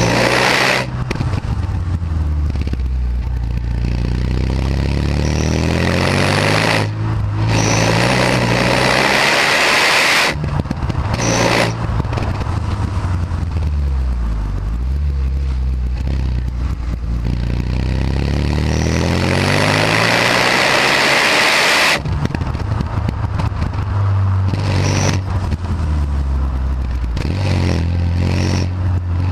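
Renault Megane R26's turbocharged 2.0-litre four-cylinder engine and stock exhaust under acceleration, its pitch climbing and then breaking off at each gear change, several times over.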